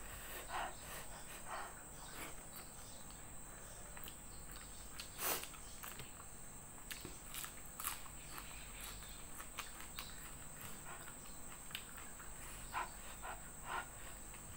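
Close-up eating sounds: scattered short crunches and mouth clicks as dried salted fish and rice are chewed, the sharpest crunch about five seconds in. A steady high insect drone, like crickets, runs underneath.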